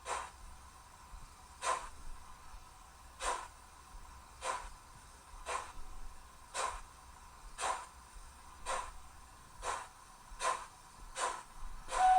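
Sound-decoder steam chuffs from an HO-scale TRIX Preussen T 16 model steam locomotive with a ZIMO MS450 decoder, played through the model's small speaker as it runs slowly. The chuffs are synchronised to the wheels and come about a second and a half apart at first, quickening to a little under a second apart as the locomotive picks up speed.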